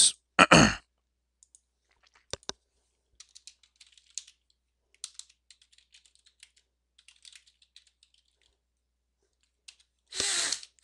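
Typing on a computer keyboard: light key clicks in short, irregular runs as a command is typed at a terminal prompt.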